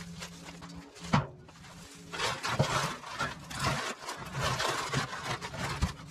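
Cut garden leaves and green waste rustling and crackling as they are gathered by hand and pushed into a galvanised metal bin, with a few dull thumps. A single sharp knock about a second in, and a low steady hum over the first second.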